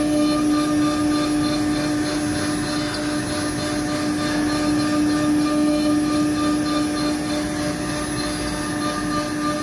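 CNC nesting router spindle running with a steady whine while milling wave-shaped grooves into an MDF panel, with a noisy hiss of the cut beneath.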